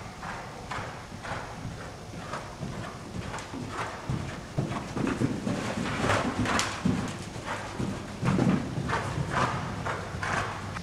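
Hoofbeats of a ridden horse on the sand footing of an indoor riding arena: a run of dull, rhythmic thuds that grows louder in the middle as the horse passes close.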